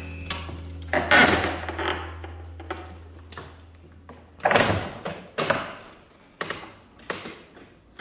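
Knocks and thuds from a window air conditioner being pushed and settled into a window frame: one loud thud about a second in, then four sharper knocks spaced about a second apart in the second half.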